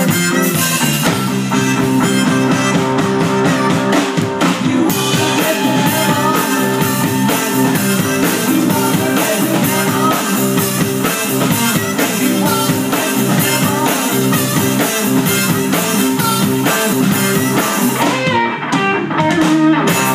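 Live blues-rock band playing: electric guitar, bass guitar and drum kit, with a harmonica played into the vocal microphone.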